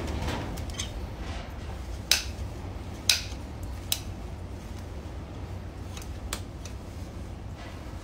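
Farrier's trimming tools cutting horn on an overgrown horse hoof: two sharp snips about two and three seconds in, a smaller one just after, then a few fainter clicks, over a low steady hum.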